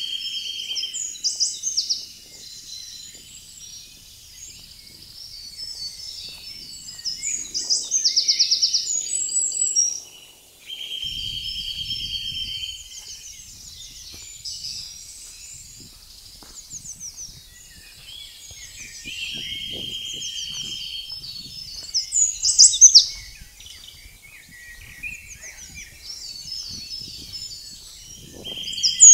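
Several songbirds singing together in a busy chorus of chirps, whistles and trills. A steady trilled phrase recurs several times, and sharp high notes are loudest about 22 seconds in and again near the end.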